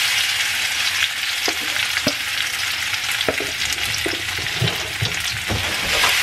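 Freshly added cut raw potatoes frying in hot oil in a skillet: a steady sizzle with scattered small crackles and pops.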